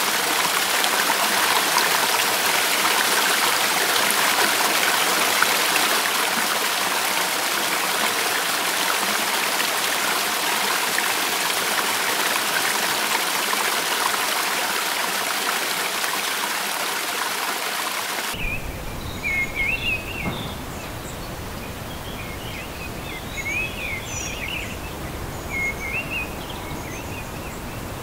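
Mountain stream cascading down a rocky waterfall, a steady rush of water. About eighteen seconds in it cuts off suddenly to birds chirping in short phrases over a low rumble.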